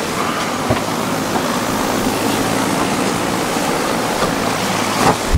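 Strong wind of about 20 knots blowing steadily across the boat's deck and over the microphone, a continuous rushing hiss.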